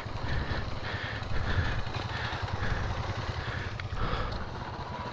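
Motorcycle engines running at low revs, a steady low rumble with no revving.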